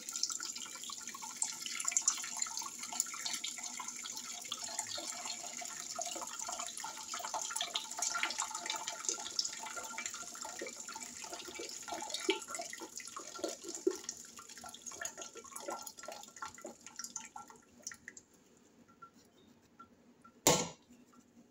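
Hot banana-peel tea poured from a small steel pot through a wire-mesh strainer into a large stainless-steel pot: a steady splashing trickle with little drips that thins out and stops about three-quarters of the way through. Near the end comes a single sharp knock.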